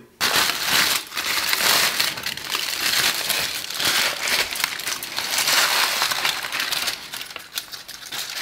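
Aluminium foil crinkling and crackling as it is pulled open and crumpled off a smoked beef brisket, easing off near the end.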